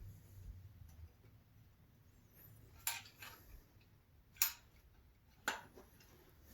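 Three sharp clicks about a second apart, with a few fainter taps between them: the refractor telescope and its mount being handled and adjusted.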